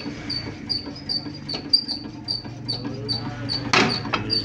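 Metal parts knocking and clinking on the steel bed of a hand screw press as a jig is set by hand, with a louder clatter near the end. A cricket chirps steadily, about two to three chirps a second, over a low hum.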